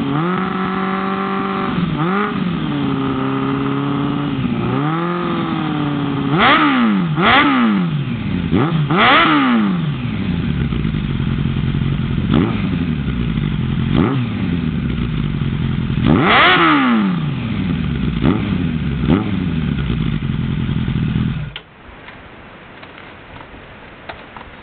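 2005 Suzuki Katana 750's inline-four engine idling and being revved repeatedly through a Delkevic Mini 8 carbon fibre muffler with its baffle in, each rev rising and falling back to idle, the strongest in a quick cluster past a quarter of the way in and another past the middle. The engine is switched off near the end.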